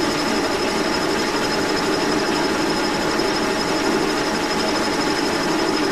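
Brown & Sharpe No. 2 Plain horizontal milling machine running, its horizontal spindle turning a cutter into a hard cast crank lever: a steady mechanical whir with a thin high whine.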